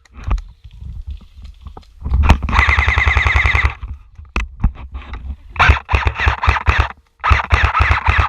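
Airsoft gun firing on full auto: a few single shots, then one long rapid burst about two seconds in and two more bursts near the end.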